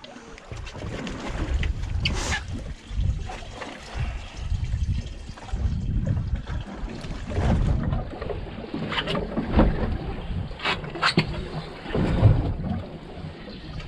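Wind buffeting the microphone and water splashing against a boat's hull, an uneven low rumble that swells and fades, with a few sharp clicks and knocks, several close together about nine to eleven seconds in.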